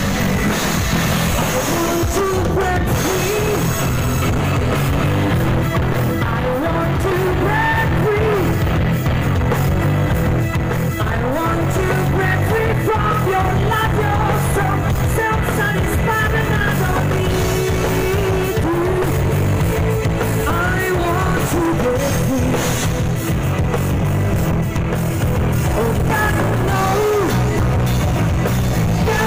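Live band playing loud rock-style music through a stage PA, a singer's voice over electric guitar and bass with a steady beat.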